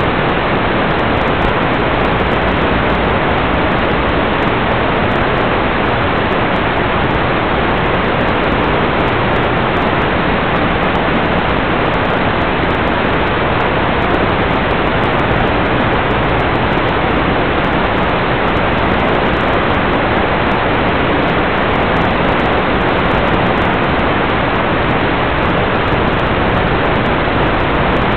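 Steady, loud hiss of static from an analog FPV video receiver's audio channel, recorded through the goggles' DVR with no sound carried on the link.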